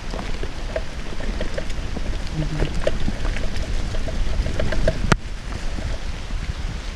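Mountain bike rolling down a wet trail over rocks and roots, with a steady rumble and constant small rattles and clicks from the bike, and one sharp hard knock about five seconds in.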